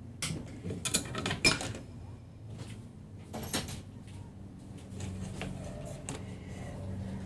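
Clicks and light knocks of tools and small parts being handled on a workbench, several close together in the first second and a half and one more about three and a half seconds in, over a faint steady low hum.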